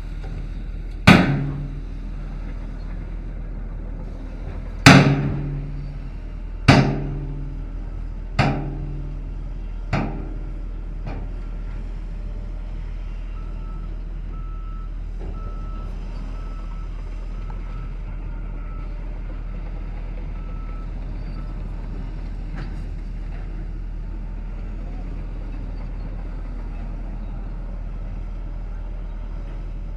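Heavy machinery running steadily, with five loud metallic bangs in the first ten seconds, each ringing briefly and dying away, the later ones weaker. Around the middle a faint reversing alarm beeps evenly for several seconds.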